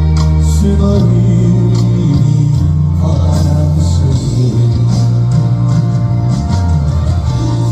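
Music: a Korean trot song, with sustained bass notes under layered instruments.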